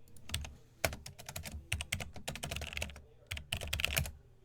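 Typing on a computer keyboard: a quick irregular run of key clicks, a short pause a little before three seconds in, then another burst.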